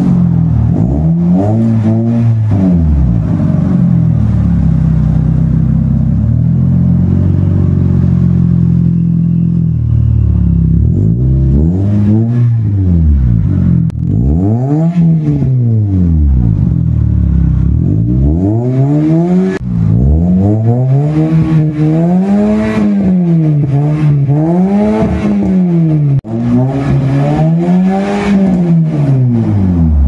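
Toyota Vios four-cylinder engine heard through an aftermarket HKS exhaust with a re-done elbow pipe, being revved: held at a steady speed for several seconds, then blipped up and down again and again, in quicker succession toward the end.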